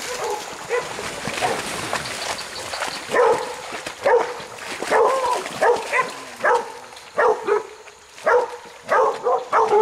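Hunting dogs baying a wild hog: repeated barks, about one or two a second, coming thicker from about three seconds in.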